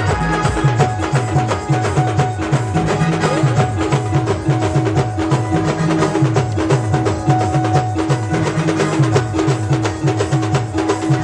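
Live band music: fast, steady drumming with a low repeating bass line and keyboard, and one note held through most of it.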